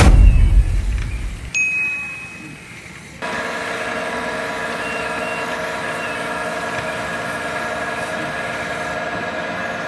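A loud thump with a low rumble at the start. From about three seconds in, a steady mechanical whine with several even tones: the hydraulic pump of a 1/14-scale KABO K970-100S RC excavator running.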